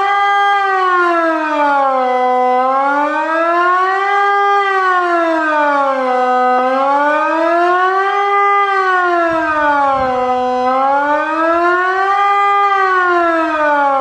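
Electronic civil-defence siren, a Wiedmann & Dettwiler sound unit driven by a Kockum Sonics ET 60/6 controller, sounding the Swiss "General Alarm" signal. It is one steady wail that rises and falls smoothly in pitch, one full cycle about every four seconds.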